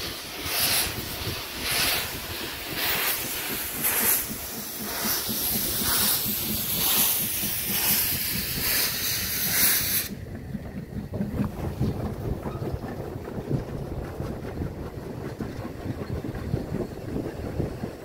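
Saxon VI K narrow-gauge steam locomotive pulling away with steam blowing from its cylinders: a regular beat of hissing exhaust chuffs, a little over one a second. About ten seconds in this gives way to a steady low rumble of carriages rolling past, with wind on the microphone.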